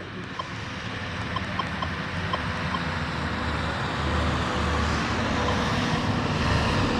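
A motor vehicle's engine and road noise, growing steadily louder as it approaches, with a few faint short ticks in the first few seconds.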